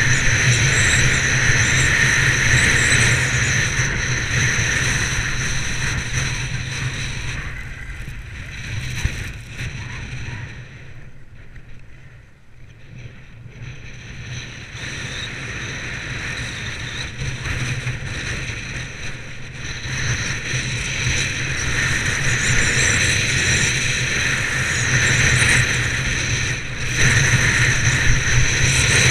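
Wind buffeting the microphone of a skier's action camera, mixed with the hiss and scrape of skis carving on packed snow during a downhill run. The noise eases off around the middle and builds again toward the end.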